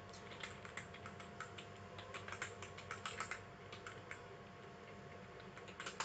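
Faint typing on a computer keyboard: a quick run of key clicks through the first half or so, then one more keystroke near the end.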